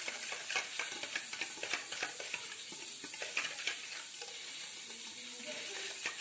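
Utensil stirring bread yeast and sugar into warm milk, tapping and scraping against the bowl in quick, irregular clicks.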